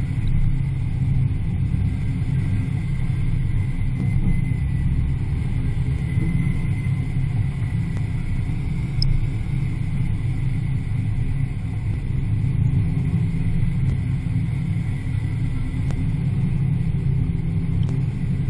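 Muscle car engine running steadily at a moderate cruise, a deep, even sound with tyre and wind noise underneath.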